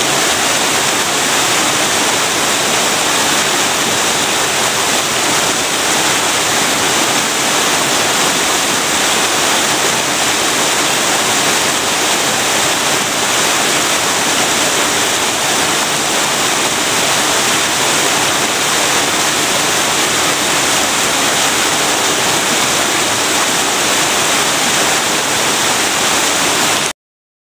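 Waterfall: water falling and splashing in a steady, loud rush that cuts off suddenly near the end.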